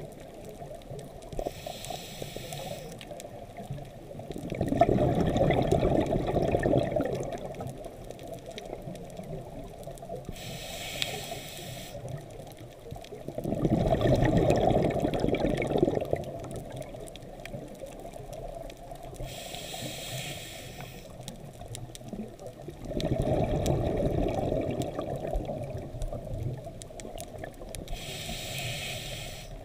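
Scuba diver breathing on a regulator underwater: a short hissing inhale, then a few seconds later a longer, louder burst of exhaled bubbles. The slow cycle repeats about every nine seconds, with three bubble bursts.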